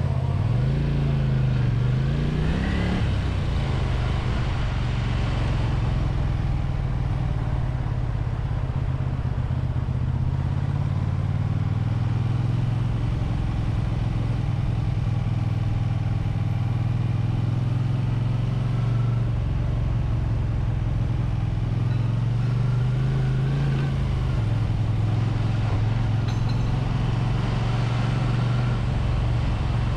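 Honda VT250F Integra's water-cooled V-twin motorcycle engine under way. Its revs climb over the first three seconds, then it runs at a steady cruise, with a brief dip and rise in pitch about two-thirds through.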